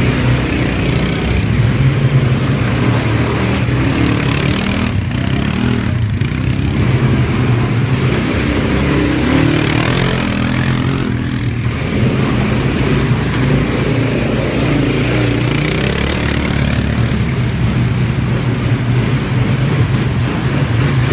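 Quad bike engines running at low speed, a loud, steady drone throughout.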